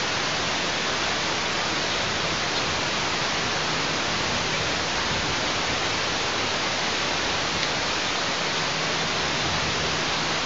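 Steady, even hiss of noise with no distinct events, over a faint low hum.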